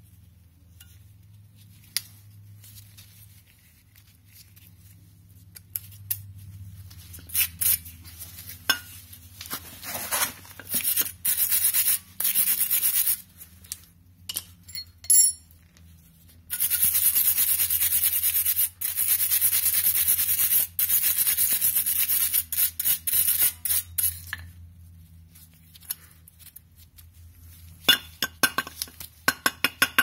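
Steel wire brush scrubbing a brake caliper bracket clean, rapid scratchy strokes in spells, the longest running for several seconds past the middle. Scattered metal clinks and knocks in between.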